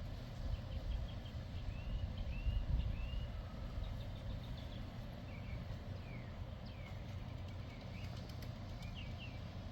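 Birds chirping: many short, arched chirps in quick succession throughout, over a steady low rumble.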